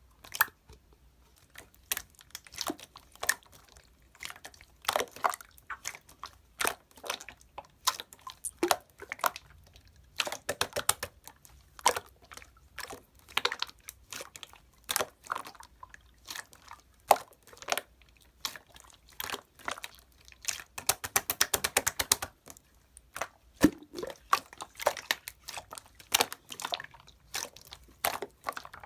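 Clear, jelly-textured slime being squeezed and pressed by hand, giving irregular wet clicks and pops of trapped air. About two-thirds through, a quick run of many small pops.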